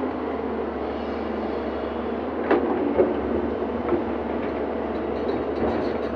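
Excavator engine running steadily, with a few sharp metallic clanks and knocks, the loudest about two and a half and three seconds in.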